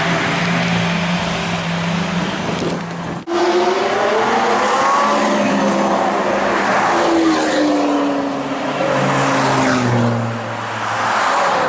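High-performance car engines: a steady low engine note, then from about three seconds in a loud engine revving and accelerating, its pitch rising and falling over several seconds.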